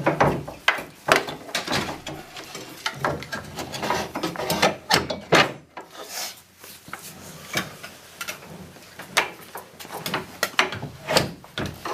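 Bamboo dresser drawer being slid back onto its metal drawer tracks and tapped into place: rubbing and scraping with a string of irregular knocks and clicks as the slides are locked into the rails.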